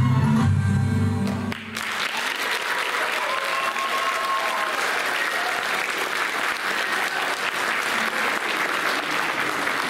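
Belly dance music with a heavy bass ends abruptly about a second and a half in, and the audience breaks into steady applause.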